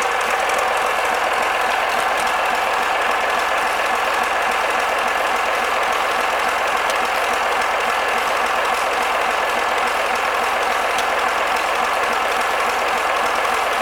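Yanmar 6GH-ST six-cylinder marine diesel engine running steadily.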